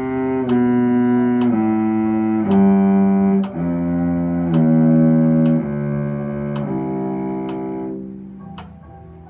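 A low bowed string instrument playing a slow scale, one sustained bowed note per beat with the notes changing about once a second, while a metronome clicks about once a second. The last note is held and fades out about eight seconds in.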